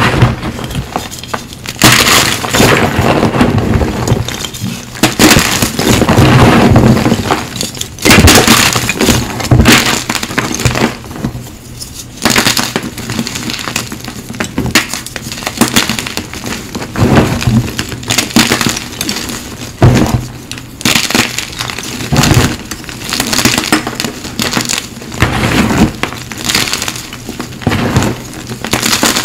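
Blocks of Cap gym chalk crushed and crumbled between the hands, an irregular run of crunches with soft powdery grinding between them.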